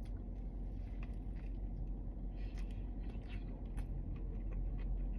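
Faint chewing and mouth clicks over a low steady room hum.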